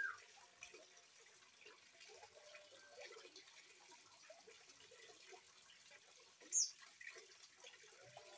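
Gentle trickling of running water. About six and a half seconds in, a young oriental magpie-robin gives one short, high chirp that falls in pitch.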